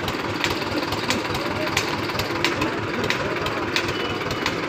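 A tractor engine running steadily, with a sharp tick repeating about every two-thirds of a second.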